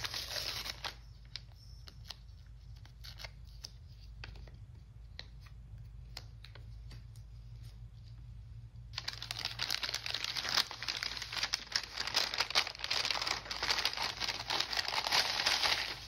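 Kraft paper mailing bag being handled: a sticker peeled off its flap at the start, then a quieter stretch with a few faint taps, then dense paper crinkling and rustling from about nine seconds in as the bag is unfolded and opened.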